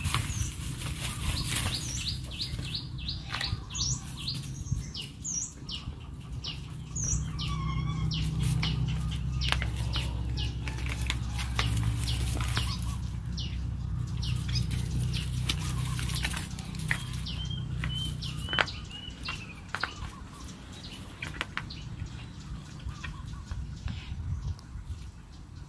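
Small birds chirping in short repeated calls over scattered rustling and scuffing in dry straw, as two puppies tussle and chew a rubber sandal. A low steady rumble runs underneath for about ten seconds in the middle.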